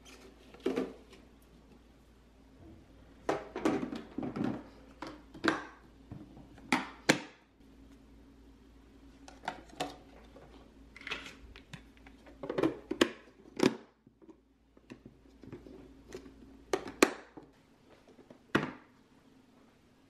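Plastic produce storage containers being handled: irregular clicks, knocks and light rustles of plastic baskets and lids and of broccoli going in, with a few sharper clacks near the end.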